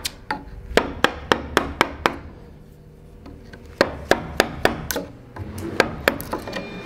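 Turned hornbeam carver's mallet striking the handle of a carving chisel as it cuts into a wood block: sharp, evenly spaced knocks at about three a second, a pause of about two seconds about two seconds in, then another run of knocks.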